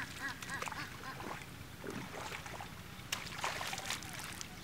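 Water splashing and dripping as a cast net is hauled up out of shallow river water, loudest about three to four seconds in. A quick run of repeated bird calls ends in the first second.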